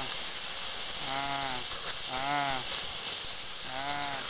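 Oxy-fuel cutting torch hissing steadily with its cutting-oxygen lever pressed, burning through a steel shaft and throwing sparks. Three short pitched calls, each rising then falling, sound over the hiss.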